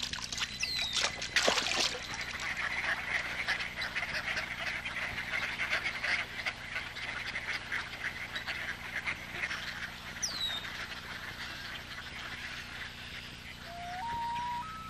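A duck bathes in shallow water with brief splashing. A large flock of waterfowl then calls in a dense, continuous chatter that thins out after about ten seconds. Near the end a long wailing call rises in steps, like a common loon's wail.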